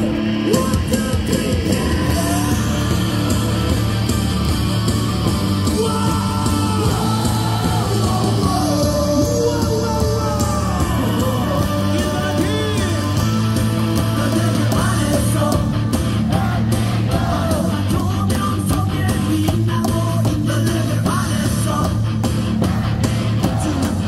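A batter's walk-up song, a rock track with guitar and singing, played over a baseball stadium's loudspeakers, with yelling from the crowd.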